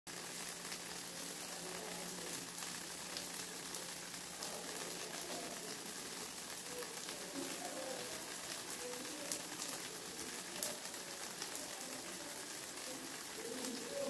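Rain and dripping water: a steady hiss with many scattered sharp drop taps.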